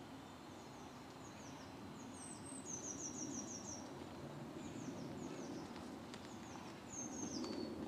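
Small woodland birds singing: short high chirps, falling notes and a quick trill. Under them, footsteps shuffle through dry leaf litter and grow louder near the end.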